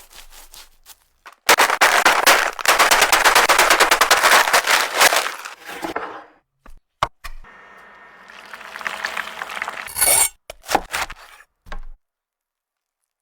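Chicken legs frying in hot oil: dense, loud crackling and spattering for about four seconds, then a quieter steady sizzle with a few sharp crackles near the end.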